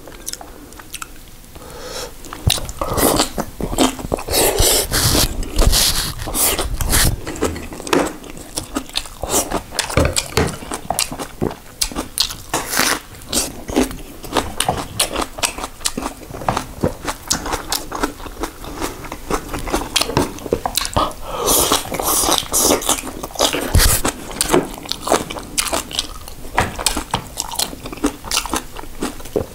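A person chewing and crunching kimchi and rice: a dense run of rapid, wet, crisp crunches and mouth clicks.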